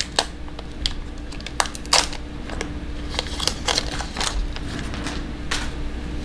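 Trading card pack wrapper crinkling and crackling as cards are worked out of it by hand, in irregular sharp crackles, the loudest about two seconds in.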